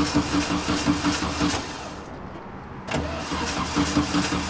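The starter cranks the 1963 Karmann Ghia's VW 1600 air-cooled flat-four in two tries with a short pause between, and the engine does not catch. It is popping back through the carburetor, which the mechanic takes as a sign that the ignition timing is off.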